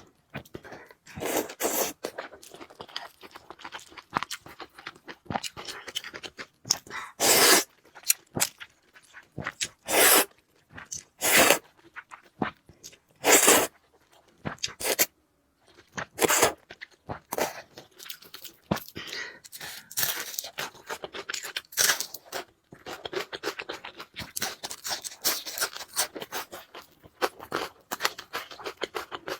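Close-miked eating of noodles and Chinese food: crunching, chewing and scraping, with louder short bursts every second or two.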